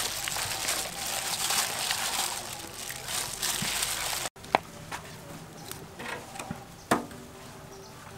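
A plastic food glove crinkling and squelching as a hand mixes seasoned raw pork pieces in a steel bowl, for about four seconds. It then cuts off suddenly, and a quieter stretch follows with a few sharp knocks of firewood being handled at a wood-burning stove.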